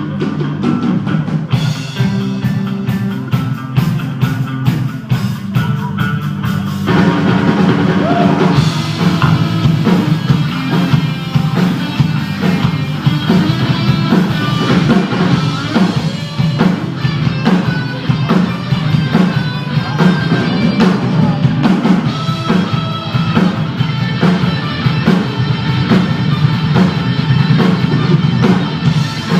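Rock music with drums and guitar, the full band coming in and the sound thickening about seven seconds in.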